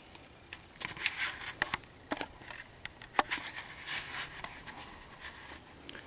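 Handling noise from a handheld camcorder being turned around: irregular rustles, scrapes and sharp clicks, with two sharper clicks in the first half.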